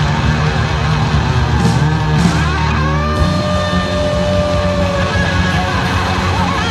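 Thrash metal band playing on a 1987 demo recording: distorted electric guitars over bass and drums. About three seconds in the chords change and a long held high note comes in.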